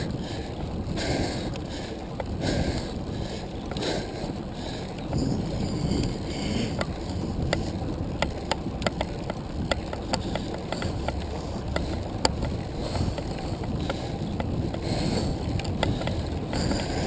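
Rolling noise from a handcycle riding on asphalt, with wind buffeting the microphone. Scattered sharp clicks run through it, thickest from about six seconds in.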